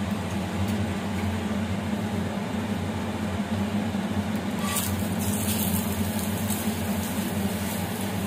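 Steady low machine hum, with a few light clicks of a steel spatula against the iron tawa about five seconds in.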